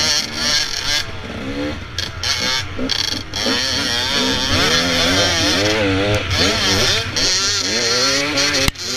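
Dirt bike engine revving, its pitch rising and falling again and again, with wind noise on the helmet-mounted camera. A sharp click about a second before the end.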